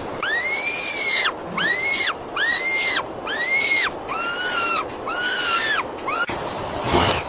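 An animal calling: a series of about six high cries, each rising and then falling in pitch, evenly spaced. About six seconds in, they give way to a noisier mixed sound.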